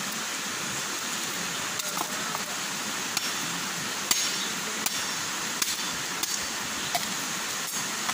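Steady rush of flowing river water, with a scattering of sharp clicks and knocks from about two seconds in.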